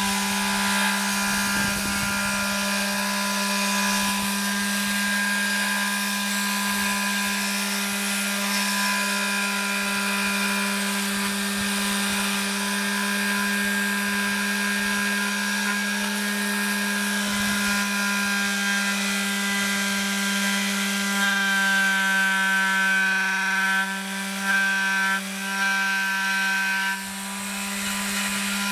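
Electric pad sander running on a wooden window sash, sanding down epoxy filler: a steady motor hum with a rubbing sound as the pad works the wood. The hum wavers and dips briefly a few times in the last few seconds.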